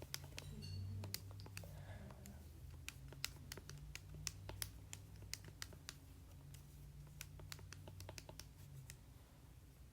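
Calculator keys being pressed one after another as a number is entered: a string of short, sharp clicks at an uneven pace, a few a second, stopping about nine seconds in.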